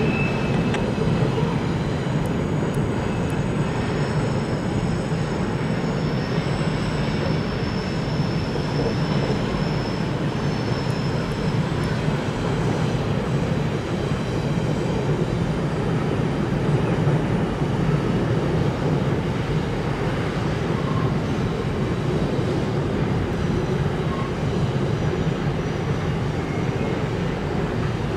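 CN freight train of grain covered hoppers rolling steadily over a steel railway bridge: a continuous rumble of wheels on rail with a faint high squeal for several seconds in the first half.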